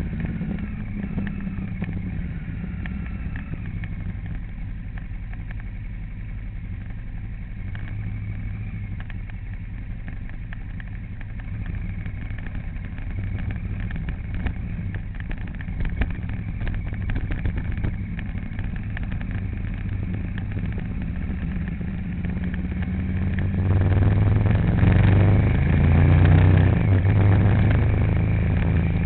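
A vehicle engine runs steadily while driving, with a low hum and road noise. About 24 seconds in it grows louder, as if accelerating or climbing.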